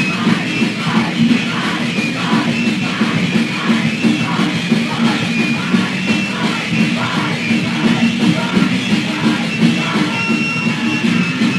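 Raw, lo-fi hardcore punk demo recording: a distorted guitar, bass and drums play loud and continuous at a fast, steady beat, with shouted vocals.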